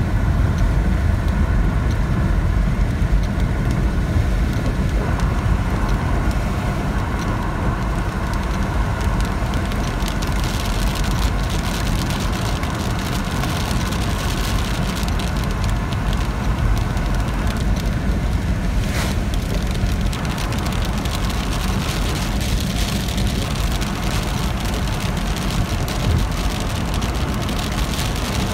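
Steady rain noise over a constant low rumble.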